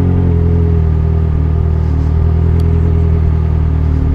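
Yamaha XJ6's inline-four engine running through a straight-pipe exhaust at steady revs while riding, loud and even.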